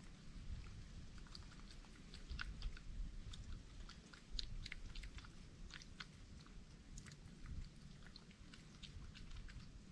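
An animal chewing and crunching food, with many small irregular crunching clicks over a low rumble.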